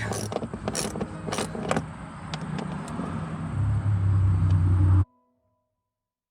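A few sharp knocks and clicks, then an engine running low and steady from about three and a half seconds in, cut off abruptly about a second and a half later. Faint piano notes begin near the end.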